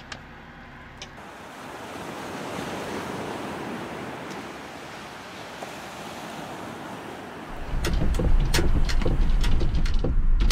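Ocean waves washing gently on the shore. About eight seconds in, a vehicle's low road rumble takes over, with sharp rattles and knocks from the van's cabin on a bumpy road.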